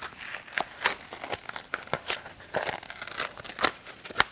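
Irregular crinkling and crackling of material being handled, with short rustles and crackles coming unevenly throughout.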